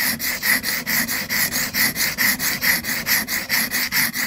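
Bull-nose chisel (aisuki) scraping on a sharpening stone in rapid, even strokes, about five a second. The blade is rocked and turned in a curve as it is stroked, to hone its rounded double bevel.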